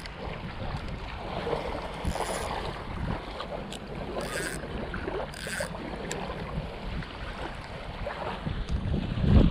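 Wind buffeting the microphone over small waves lapping at the water's edge, with a few brief scratchy handling noises. A stronger gust rumbles near the end.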